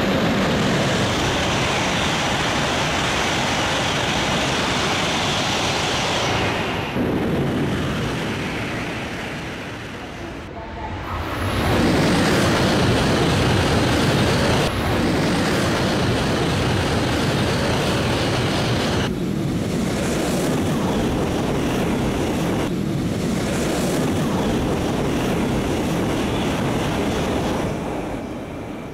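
Shinkansen bullet trains passing at speed: a loud, continuous rush of air and wheel noise. It eases off about seven seconds in, then rises again as the next train passes.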